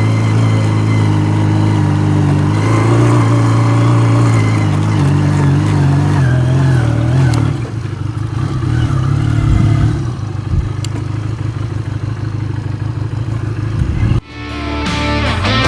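A motor vehicle's engine running steadily, dropping lower and quieter about halfway through. Near the end it cuts off abruptly and guitar music begins.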